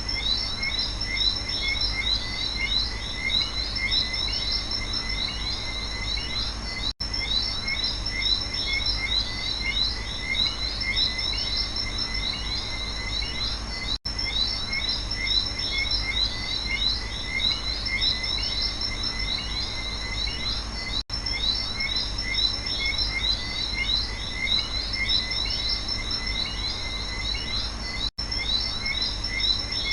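Night rainforest chorus of frogs and insects: dense, continuous high chirping calls over a steady low rumble. The sound drops out for an instant about every seven seconds, as a short recording looped would.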